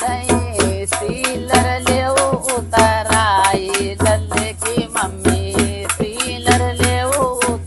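Women singing an Awadhi sohar folk song over a dholak beaten in a fast, steady rhythm, about four to five strokes a second, with a deep drum boom under the sharp strokes.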